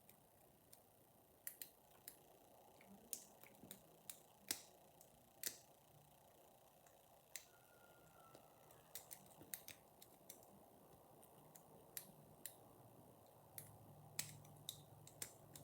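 Faint, irregular metallic clicks of a half-diamond pick working the pins of a six-pin euro cylinder lock held under tension.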